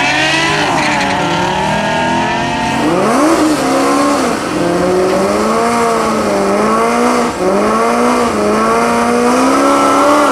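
A 2008 Corvette and another car accelerating hard side by side down a drag strip. The engines climb in pitch and drop back at gear changes in the first few seconds, then hold a loud, slightly wavering note as the cars run on toward the finish.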